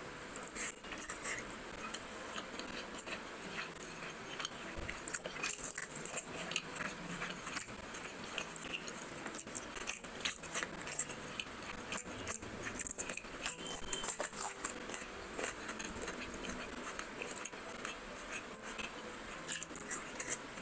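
Close-miked eating sounds of a person chewing fried fish eaten by hand: a dense, irregular run of small wet clicks and smacks.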